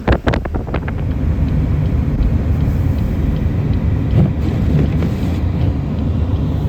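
Car driving through blizzard wind: a steady low rumble of vehicle and wind noise, with a few sharp knocks in the first second.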